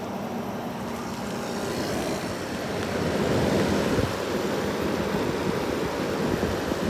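1970s General Electric window air conditioner running, its fan blowing cold air in a steady rush over a low hum. The rush grows louder about two seconds in.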